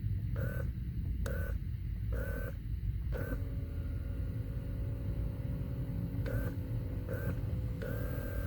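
Short electronic beeps from a 2003 Honda Pilot's climate control panel as its buttons are pressed: four about a second apart, a pause with a faint steady hum, then three more, the last one longer. Under them runs the steady low rumble of the vehicle in the cabin.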